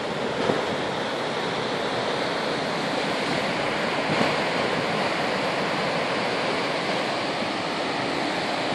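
Sea surf churning and surging among rocks in a narrow coastal chasm: a steady rush of breaking water.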